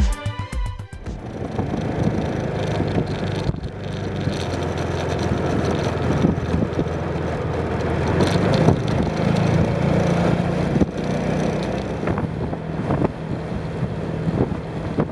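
Motorcycle engine running steadily on the move, with wind rushing over the microphone. Background music cuts off about a second in.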